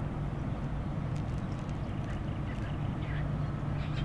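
A steady low drone over a haze of background noise, with a few faint, short bird calls now and then.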